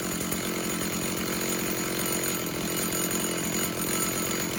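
Stihl MS290 two-stroke chainsaw idling steadily. It reads about 2,600–2,700 rpm, close to the 2,800 idle it should run at.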